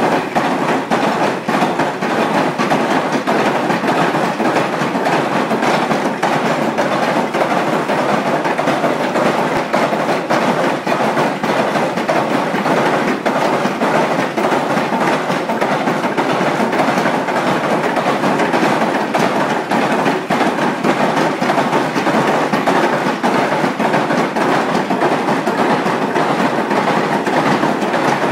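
Three-stamp mill battery running, its stamps dropping one after another to crush ore in a steady, rapid, continuous clatter of metal impacts.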